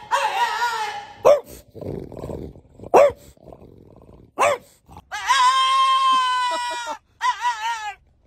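French bulldogs vocalising in wavering, howl-like calls and short sharp yelps. About five seconds in comes a long, steady, drawn-out howl, followed by a shorter wavering one.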